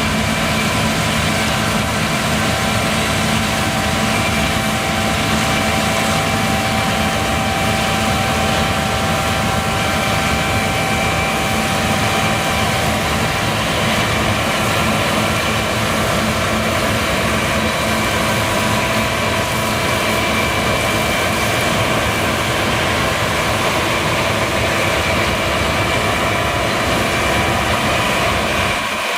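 John Deere combine harvester running steadily while harvesting barley: a constant engine and machinery drone with several steady whining tones over it.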